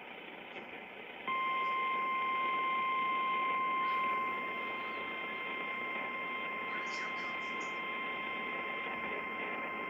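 NOAA Weather Radio warning alarm tone: after a second or so of radio hiss, one steady high-pitched beep starts and holds without a break, announcing that a warning message follows.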